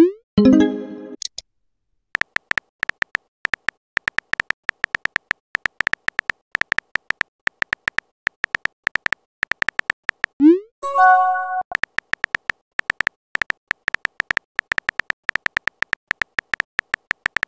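Chat-app sound effects: a rapid stream of keyboard typing clicks, broken twice, at the start and about ten seconds in, by a quick rising whoosh and a short pop-and-chime as a message is sent.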